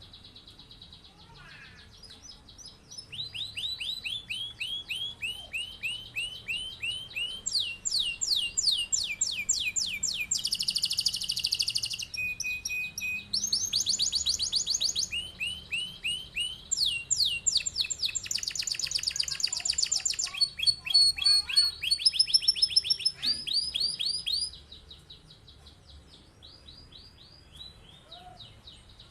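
Domestic canary singing a long rolling song of rapid trills, each a run of fast repeated sweeping notes that switches to a new pattern every second or two. The song begins about three seconds in and breaks off into softer notes about five seconds before the end.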